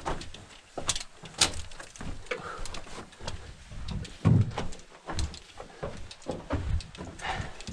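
Footsteps over the rocky, debris-strewn floor of a mine tunnel: irregular clicks and knocks with low thuds, the loudest thud about four seconds in.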